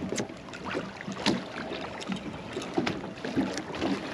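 Small waves lapping and slapping against the hull of a 22-foot Bulls Bay boat, with scattered sharp knocks and clicks.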